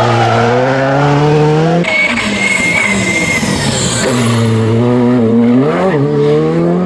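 Rally car engine accelerating hard, its pitch climbing; about two seconds in, a high tyre squeal with skidding noise takes over, then the engine pulls again, with a quick rise and drop near six seconds like a gear change.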